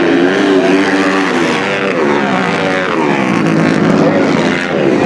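Several dirt-track racing motorcycles running together through a turn, their engines overlapping and sliding down and back up in pitch as the riders come off and back onto the throttle.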